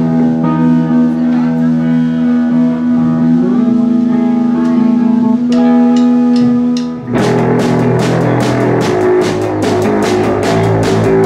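Live rock band: an electric guitar plays held notes, one of them gliding up in pitch a few seconds in. About seven seconds in the full band comes in, with drums striking steadily under the guitar and bass guitar.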